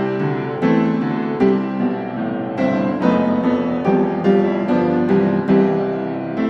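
Background piano music: a slow, gentle melody of struck notes and chords, each note ringing and fading.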